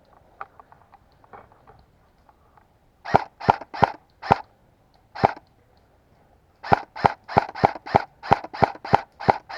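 Airsoft electric rifle firing single shots, each a short sharp crack: a group of five spaced shots, then a quicker run of about ten at roughly three a second near the end.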